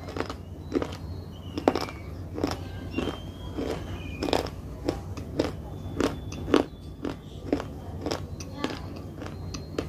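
Close-miked eating: crisp crunching bites and chewing of crunchy food, about two crunches a second, over a low steady hum.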